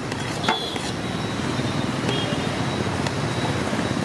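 Steady road traffic noise with a sharp click about half a second in and a couple of fainter ticks later.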